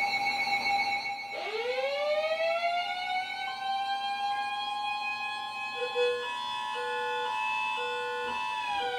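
Several weather alert radios sounding their alarms for an incoming High Wind Warning. A siren-style alert winds up about a second in and holds. A steady tone joins it, then an on-off beeping alarm comes in about six seconds in, and the siren winds back down near the end.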